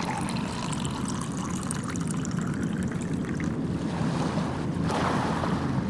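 Steady rushing water noise with a low rumble underneath, swelling slightly about five seconds in.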